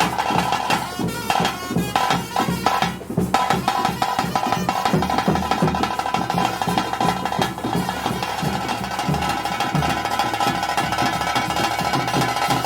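Live bhuta kola ritual music: continuous rhythmic drumming under a sustained high held note.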